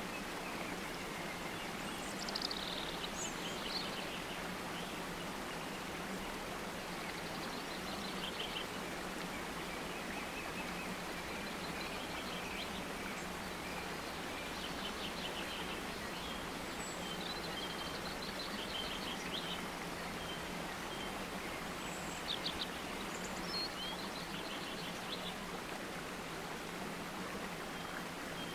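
Steady rushing background noise with birds chirping in short high trills now and then, loudest near the start and again near the end.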